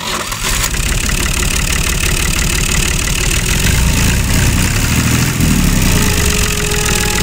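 Tractor engine running steadily, with a heavy low sound that gets louder for a second or two about halfway through.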